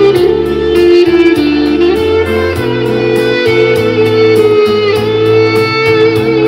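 Street musician's woodwind playing a melody with bending notes over an amplified backing track with a bass line and a steady beat.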